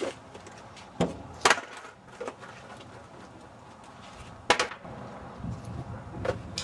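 Skateboard deck and wheels clacking on pavement as the board is kicked and flipped up and drops back: several sharp wooden knocks with pauses between, two close together about a second in and another at about four and a half seconds.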